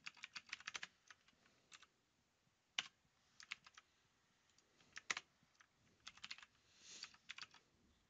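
Computer keyboard typing quietly in short bursts of keystrokes with pauses between them, and two single, harder key presses about three and five seconds in.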